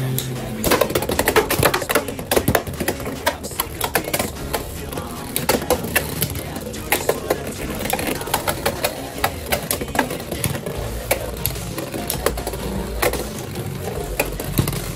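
Two Beyblade X spinning tops battling in a plastic stadium, clattering against each other and the stadium walls in rapid, irregular clicks and knocks.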